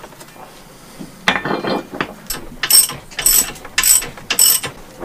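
Metal clicking and rasping as the steel parts of a Mantus anchor are fitted and bolted together: a short rattling scrape, then four sharp rasps about half a second apart.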